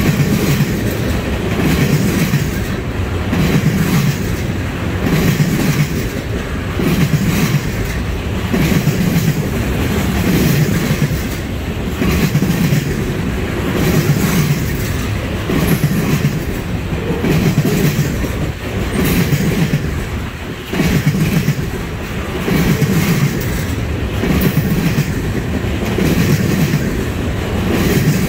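Freight train's flatcars loaded with trash containers rolling past close by. The wheels clack over the rail joints in a steady repeating rhythm, about once a second, over a constant rumble of the cars.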